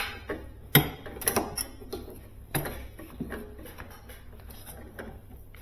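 Light clicks and taps of copper refrigerant tubing and fittings being handled and offered up into place, with a few sharp knocks in the first three seconds, then quieter handling.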